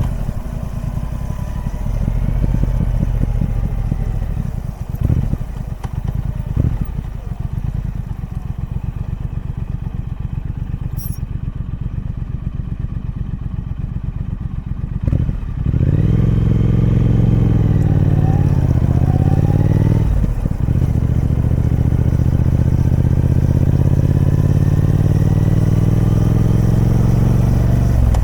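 Triumph Speed Twin 1200's parallel-twin engine on its stock exhaust, running at low revs with an even, pulsing beat. About halfway through it opens up and gets louder, the pitch climbing, dips briefly about two-thirds in, then holds a steady, higher note.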